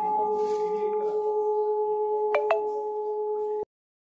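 Hanging temple bell ringing out after a strike, one steady tone with several overtones, slowly fading. Two small clicks about two and a half seconds in, then the sound cuts off suddenly.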